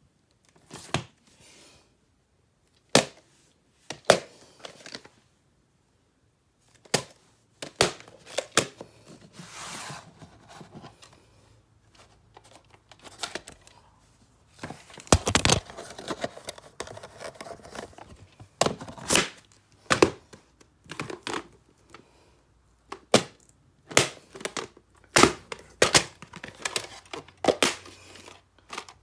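Plastic VHS cassettes and clamshell cases being handled on a wooden surface: a string of sharp clicks and knocks as they are tapped, set down and moved, with a stretch of rustling around ten seconds and a dense run of clattering around fifteen seconds.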